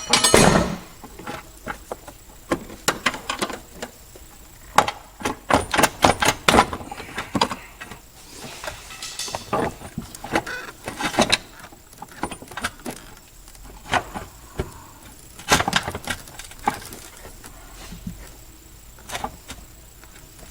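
Clicks, knocks and rattles of tools and plastic intake parts being handled in a car's engine bay, with some squeaky scraping; the loudest knock comes right at the start.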